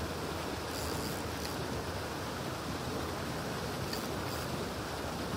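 Steady rushing outdoor noise with a few faint high clicks about a second in and again near four seconds.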